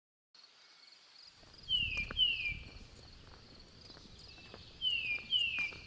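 A forest bird whistling a pair of falling notes, twice, about three seconds apart, over a steady high trill of insects.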